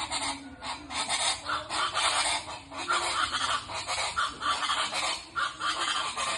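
Chachalacas (guacharacas) calling in a loud, harsh chorus of rapid, rasping repeated cries, their dawn call.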